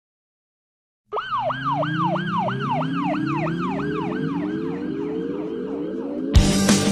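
A siren sound in quick rising-and-falling sweeps, about two and a half a second, over a lower tone that keeps sliding upward, starting about a second in and slowly fading. Near the end the song kicks in with loud drum hits.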